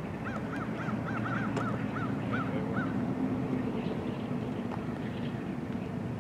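A bird calls a quick series of about nine short, rising-and-falling notes, roughly three or four a second, during the first three seconds. It sounds over the steady low rumble of an idling train.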